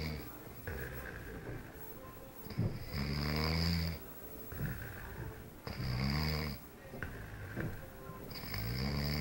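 A person snoring loudly and rhythmically: a rasping snore about every three seconds, each lasting about a second, with quieter breathing in between.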